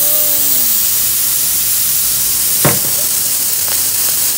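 Pressure cooker venting steam through its pulled pressure valve, a loud steady hiss as the pressure is released after cooking with the heat off. A short voice-like sound comes at the start, and there is a brief sharp sound a little past halfway.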